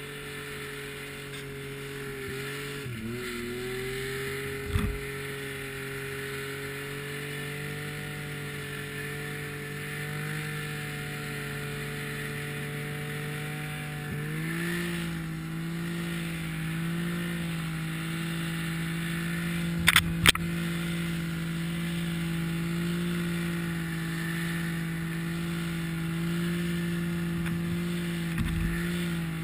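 Snowmobile engine running at a steady pitch while pushing through deep powder, dipping briefly early on and stepping up in pitch about halfway through. A few sharp knocks break in, the loudest a quick pair about two-thirds of the way in.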